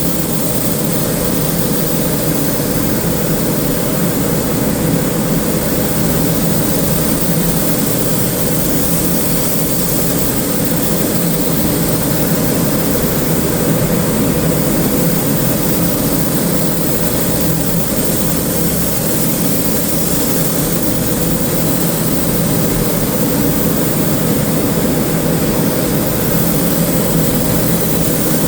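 Steady machine drone with a hum and an even hiss over it, unchanging throughout.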